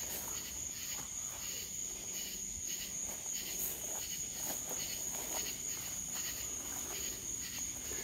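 Crickets chirping at night, a steady, unbroken high-pitched trill.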